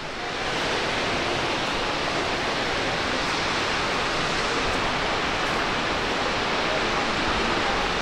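Steady roar of Fukuroda Falls, a large tiered waterfall: an even rush of falling water with no breaks.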